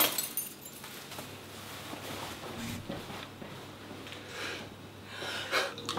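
Quiet room tone: a faint steady hiss with a low hum, after a short noisy burst right at the start.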